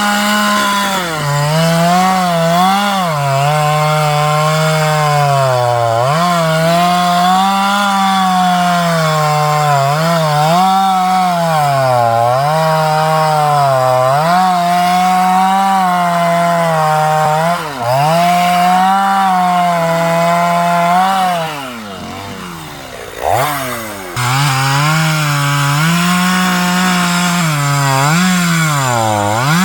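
Stihl chainsaw cutting wood under load, its engine note sagging and recovering every couple of seconds as the chain bites into the cut. About 22 seconds in the engine drops off briefly, then revs sharply back up and cuts again.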